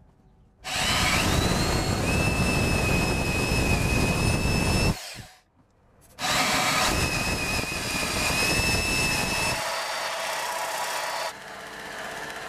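Drill press boring holes through an 8 mm steel knife blank, in two passes of about four seconds each separated by a short pause. Each pass is a loud grinding with a steady high-pitched squeal from the bit. Near the end a quieter belt grinder takes over.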